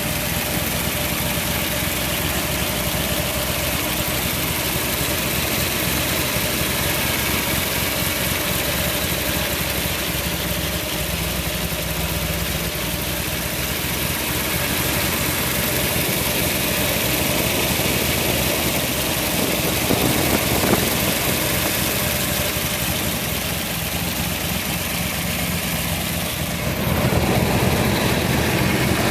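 1969 Corvette's 427 cubic-inch, 400 hp Tri-Power big-block V8 with side exhaust idling steadily, a little louder near the end.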